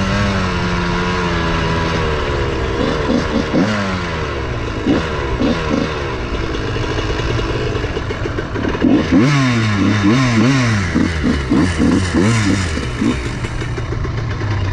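Dirt bike engine running under the rider, its pitch rising and falling over and over as the throttle is worked and gears change, with a burst of quick revs in the second half.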